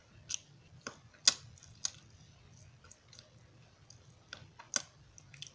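Dry eko clay being bitten and chewed: a string of short, sharp crunches and cracks at irregular intervals, the loudest a little over a second in.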